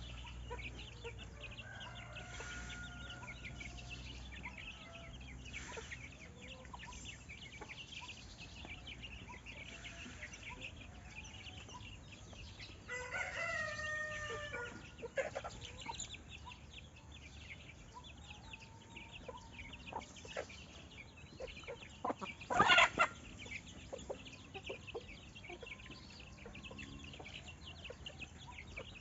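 Free-ranging chickens: a rooster crows once for about two seconds around the middle, and a short, louder call comes a little past three-quarters of the way through, over steady high chirping in the background.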